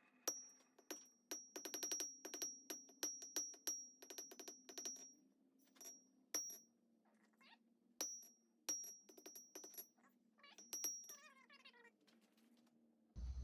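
Hammer blows on steel stock at the anvil, about three a second in quick runs, each with a bright high ring, with pauses between the runs.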